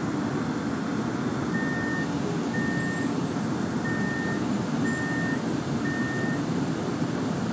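SEPTA Kawasaki subway-surface trolley car running through the tunnel: a steady rumble of wheels on the rails and motors heard from inside the car. About a second and a half in, five short high beeps sound, about one a second.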